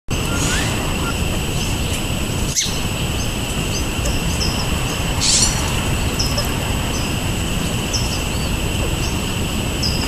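Small songbirds giving short, high chirps again and again over a steady high hiss and a constant low background rumble; a single sharp click about two and a half seconds in.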